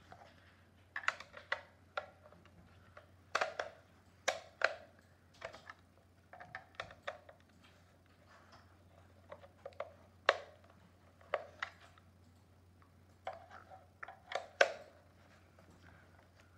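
Irregular sharp clicks and taps of hard plastic as a cordless phone's base unit is handled and turned over while being taken apart, coming in small clusters. Near the end a screwdriver works the screws on its underside.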